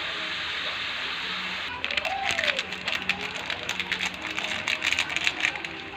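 Chicken pieces frying in a wok with a steady sizzle; about two seconds in, as soy sauce goes into the hot pan, it breaks into loud, irregular crackling and spattering.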